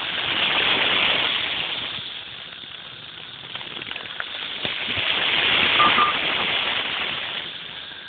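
Chorus of 13-year periodical cicadas in the trees: a loud, dense, high buzzing that swells about a second in, eases, and swells again around five to six seconds before falling back.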